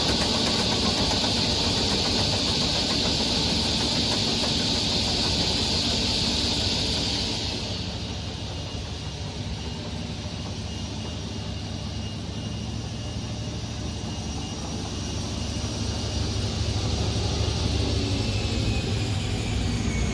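SCM M3 S crawler-feed multi-rip saw running, its motor and blades making a steady machine noise. A loud hiss runs until about eight seconds in, then stops, leaving a quieter hum that grows louder again near the end, with a falling whine.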